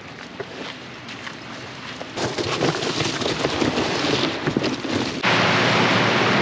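Rubber inflatable dinghy dragged over a pebble beach: crunching and scraping of stones, denser and louder from about two seconds in. About five seconds in it cuts suddenly to a steady hiss of wind on the microphone.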